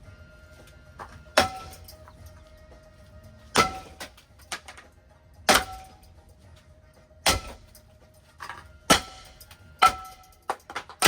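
A ceiling fan being smashed: about seven sharp metallic impacts, each ringing briefly, one every one and a half to two seconds.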